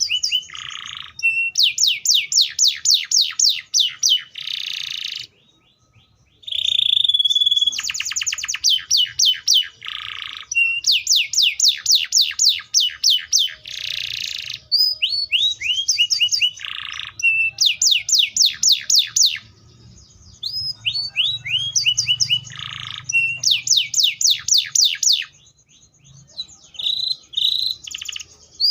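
Atlantic canary singing a long, loud song: phrase after phrase of fast trills made of repeated downward-sweeping notes, mixed with buzzy notes and short pauses.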